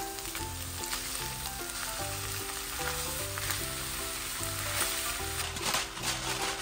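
Shredded chicken sizzling as it fries in oil in a nonstick pan, stirred with a silicone spatula, with short scraping stir sounds that come thicker near the end. Background music with steady notes plays underneath.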